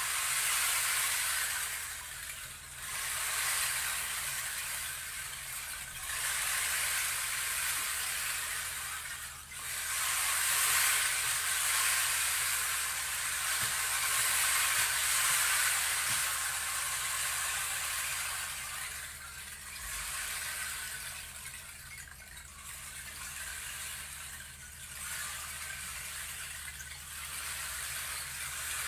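Stream water running: a steady hiss of flowing water that swells and eases every few seconds.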